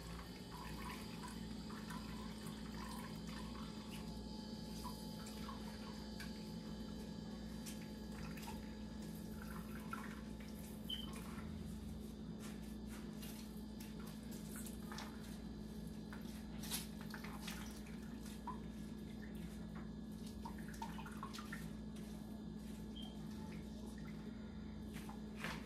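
Pineapple-cucumber juice dripping and trickling into a plastic jug as a cloth bag of pulp is squeezed by hand, with faint handling ticks and a steady low hum underneath.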